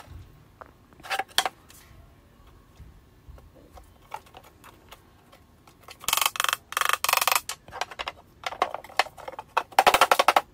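A couple of single knocks, then two runs of very rapid, sharp clicking or tapping from tool work on a dowel-jointed melamine cabinet, the first about six seconds in and the second near the end.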